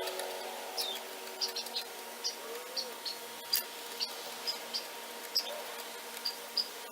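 Short, high-pitched chirps, a dozen or so at irregular intervals, over a faint steady hum.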